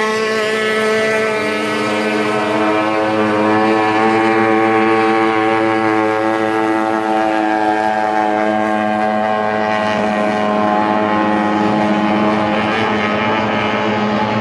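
Racing outboard hydroplanes running flat out on the water: a loud, steady high-revving engine whine made of several engine notes at once. About a second in, one note slides lower in pitch as a boat goes by.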